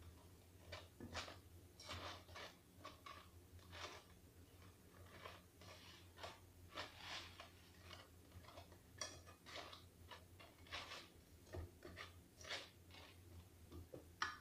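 Silicone spatula scraping and tapping against a non-stick pot as fried balushahi are turned in sugar syrup: faint, irregular strokes, a few each second, over a low steady hum.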